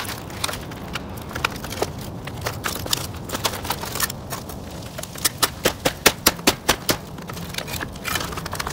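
Sharp knocks and clinks of loose bricks and sheet-metal chimney flashing being pried and pulled off a brick chimney stump, with a quick run of about seven strikes a little past the middle.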